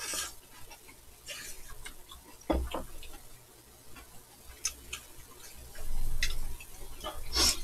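Close eating sounds: noodles slurped and chewed, with scattered light clicks of chopsticks against bowls and a low thump about two and a half seconds in.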